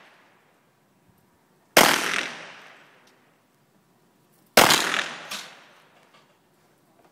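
Two pistol shots about three seconds apart, each a sharp crack followed by a long echo that dies away over about a second and a half.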